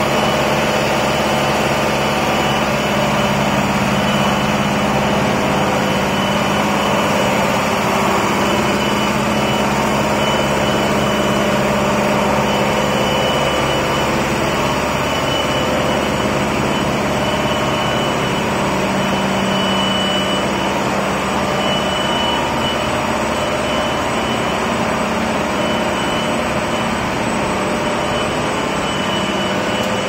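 Rubber extrusion and microwave vulcanization line running: a steady mechanical drone with several hum tones and a faint high whine that comes and goes.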